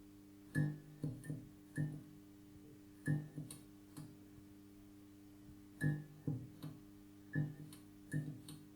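Flickering tube light: a steady electrical mains hum with irregular sharp buzzing crackles. The crackles come singly or in quick clusters, about a dozen in all, with a pause of nearly two seconds in the middle, as the tube sputters on and off.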